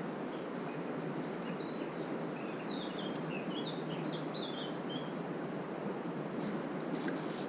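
A small songbird singing a quick run of short, high chirps for about four seconds, over the steady rush of the river.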